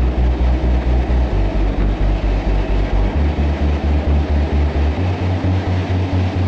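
Victorian Railways T-class diesel-electric locomotive T386 running through a rail tunnel, heard from its roof: a loud, steady low throb pulsing about four times a second over the rumble of the train.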